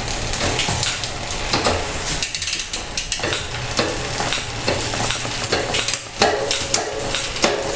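Drivetrain of a bike on a workstand running while the gears are shifted. The chain rattles over the cassette, with many sharp clicks from the SRAM Rival XPLR AXS wireless shifter and rear derailleur changing gear.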